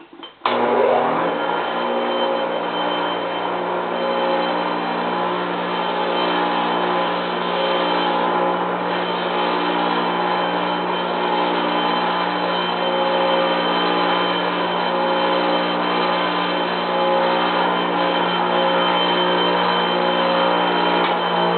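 Bench grinder switched on about half a second in, then running with a steady motor hum while a part that stands slightly proud is ground down so the pulley will sit flush, giving a continuous grinding hiss.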